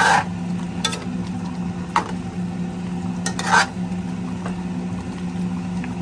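Metal spoon stirring chicken curry in a stainless steel pot, scraping and clinking against the pot a few times, loudest right at the start and about three and a half seconds in. A steady low hum runs underneath.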